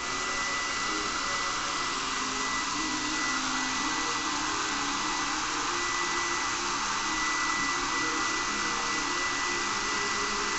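Handheld hair dryer running steadily, an even rushing blow with a thin high whine through it.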